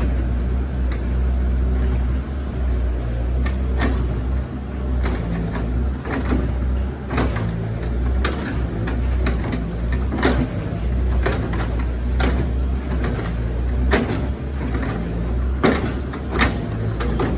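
Doosan 140 excavator's diesel engine running steadily at work, with repeated sharp knocks and clanks scattered through it.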